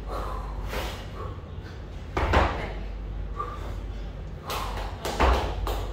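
Kettlebell snatch repetitions: a sharp thud with a forceful breath about two seconds in and again about five seconds in, one per rep, roughly three seconds apart, with softer breaths between.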